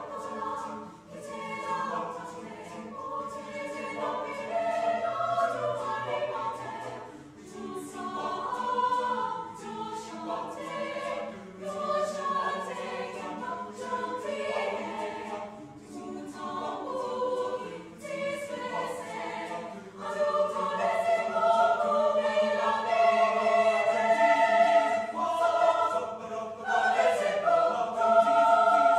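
Mixed choir of men's and women's voices singing a cappella in Haitian Creole, in several layered parts with sharp rhythmic consonant attacks. The singing grows louder about twenty seconds in.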